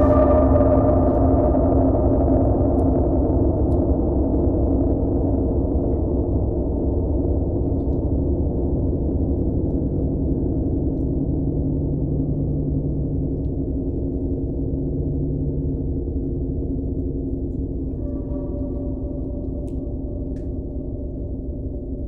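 Tibetan gongs ringing on in a dense cluster of sustained overtones that slowly fade. About eighteen seconds in, higher tones swell up again from a soft stroke.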